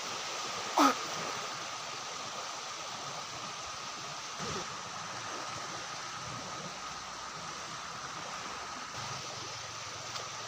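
Steady rushing of water with a faint high hum held throughout. About a second in, one short, loud sound slides quickly down in pitch, and a fainter low downward slide follows a few seconds later.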